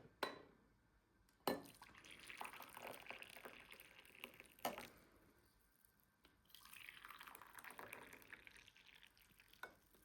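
Liquid being poured in two spells of a few seconds each, with a few sharp knocks in between, such as a container set down on a hard surface.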